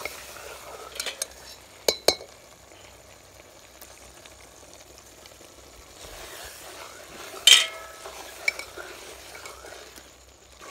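Metal ladle stirring thick egg curry in a metal pot, scraping through the gravy and knocking against the pot a few times. The loudest knock, a ringing clank, comes about seven and a half seconds in.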